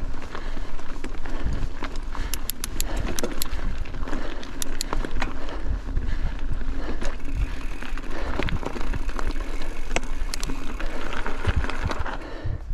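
Mountain bike climbing over rough trail ground: tyres rolling and crunching, with a low rumble and sharp clicks and rattles from the bike, most of them clustered between about two and five seconds in.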